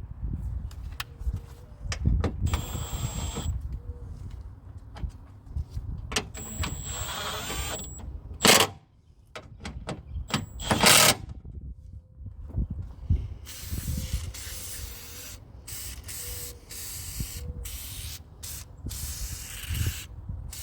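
Aerosol can of Fluid Film spraying in several hissing bursts of a second or so, with small metal knocks and clicks between.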